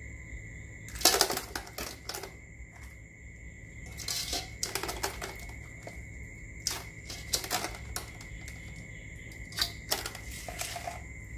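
Clatter of utensils against dishes: about four clusters of light clicks and knocks spread through the stretch.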